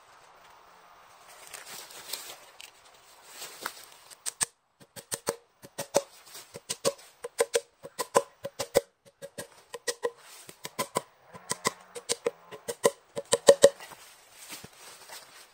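Hammer tapping enoki spawn plugs into drilled holes in a cherry log: a quick run of sharp wooden knocks, about three a second, starting about four seconds in after some rustling.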